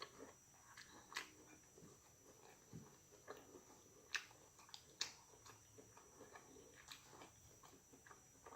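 Faint chewing with scattered wet mouth clicks and smacks, a few sharper ones about a second in and around four and five seconds in.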